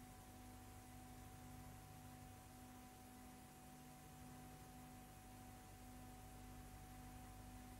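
Near silence: a faint steady hum with a thin high tone over light hiss, the blank soundtrack of a silent newsreel.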